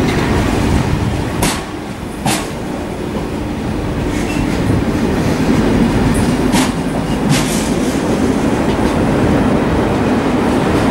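TGV high-speed passenger cars rolling past close by: a steady rumble of wheels on rail, broken by a few sharp metallic clacks that come in two pairs.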